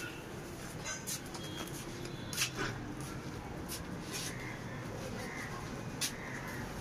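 Clothes being pulled off a clothesline: fabric rustling and flapping, with a few short sharp clicks, over a steady rumble of strong wind on the microphone.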